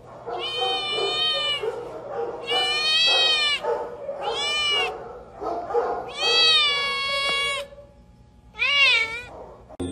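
Tabby kitten meowing repeatedly: five long, high meows, the last one shorter with a wavering pitch.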